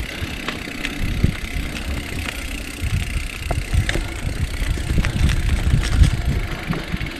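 Mountain bike rolling over a rough dirt trail: an uneven low rumble of tyres and frame, with scattered clicks and rattles.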